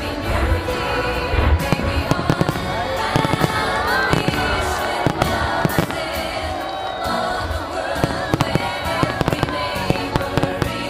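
Aerial firework shells bursting in rapid, irregular succession: many sharp bangs through the whole stretch, over music with a steady beat.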